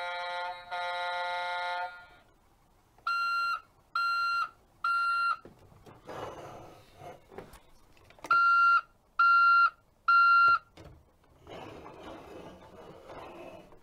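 Electronic sound effects from a Tonka toy garbage truck's speaker: two long buzzy tones, then three reversing-alarm beeps about a second apart, a stretch of noisy truck sound, three louder beeps, and more noisy sound near the end.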